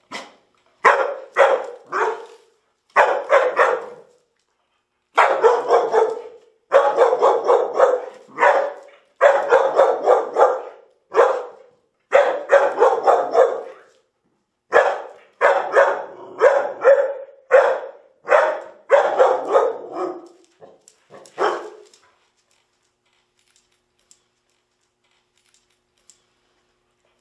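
An agitated female dog barking repeatedly in quick runs of barks, the barks growing sparser and stopping about 22 seconds in as she calms down.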